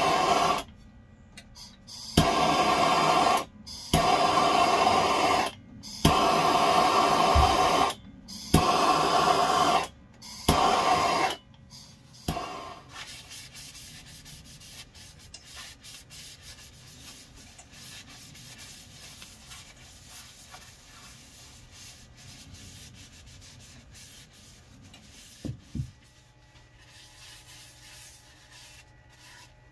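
Gas blowtorch fired in six short blasts of hissing flame, each a second or two long, played on the bowl's bark edge; then a cloth rubbing quietly over the cherry bowl.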